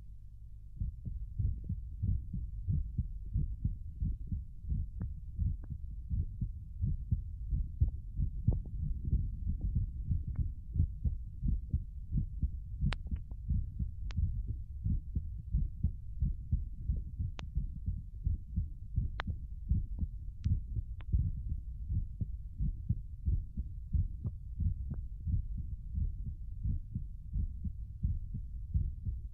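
Human heartbeat sound effect: a steady run of low, dull thumps repeating evenly, growing louder about a second in. A few faint clicks from the vinyl record surface sit over it.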